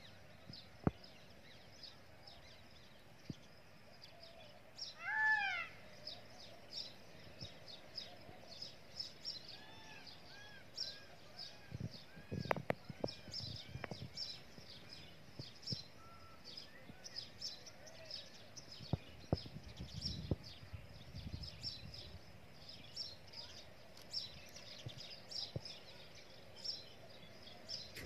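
Outdoor ambience full of small birds chirping steadily, with one louder, pitched bird call about five seconds in and a run of short arched chirps near the middle. Low rumbles come and go around the middle.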